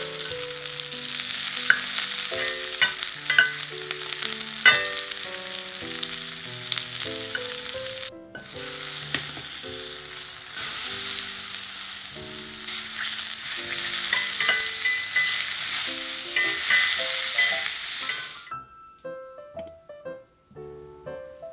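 Vegetables sizzling in a cast-iron skillet: mushrooms and asparagus are turned with metal tongs that clink against the pan a few times in the first five seconds. After a short break, halved cherry tomatoes sizzle in the same pan. The sizzling stops a few seconds before the end, leaving light piano background music.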